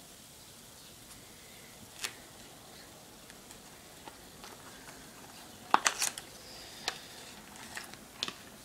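Faint fizzing of baking soda foaming in lemon juice in a glass bowl, with a few sharp clicks and taps, loudest in a quick cluster a little past the middle.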